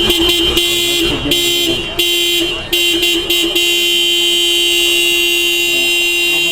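Car horn honking in a quick run of short, uneven toots, then held in one long steady blast from about three and a half seconds in.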